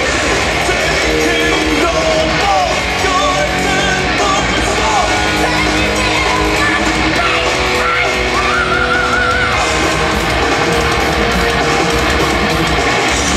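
Heavy metal band playing live at full volume: distorted electric guitars, bass and drum kit with a lead vocal, heard from among the audience.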